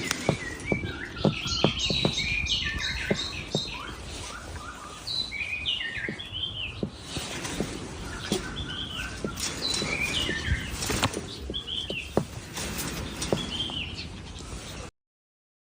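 Birds chirping in quick runs of short rising and falling notes, with frequent sharp clicks mixed in. The sound cuts off suddenly near the end.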